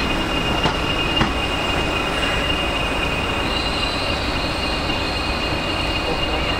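A train moving on the rails, its wheels squealing steadily in a high pitch over a continuous rumble, with a couple of clicks over rail joints in the first second or so. A second, higher squeal joins about halfway through.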